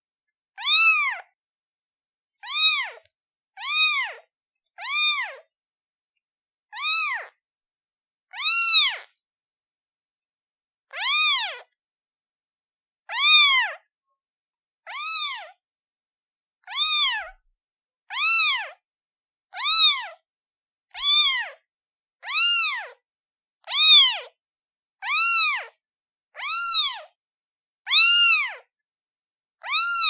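A newborn kitten, a day old, meowing over and over to call its mother. It gives short, high calls that rise and fall in pitch, about one every second or two, with a couple of longer pauses early on.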